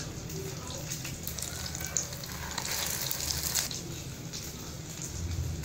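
Egg-coated chicken shami kebab patties frying in hot cooking oil on a low flame, with a steady sizzle that swells for about a second midway.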